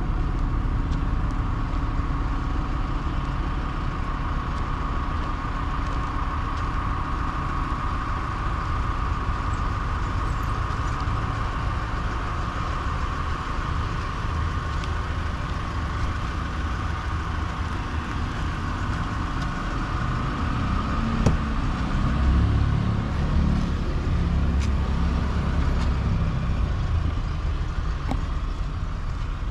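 2016 Dodge Grand Caravan's 3.6-litre V6 idling steadily, heard from outside the van, with wind buffeting the microphone for several seconds about two-thirds of the way through.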